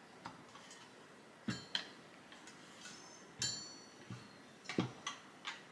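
Metal clicks and knocks of a Snow Peak Home & Camp Burner, a stainless-steel folding canister stove, being handled and turned over on a table: about six sharp knocks, the one a little past halfway with a brief metallic ring.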